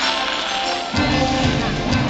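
Fireworks show soundtrack music, with a deep bass part coming in about a second in.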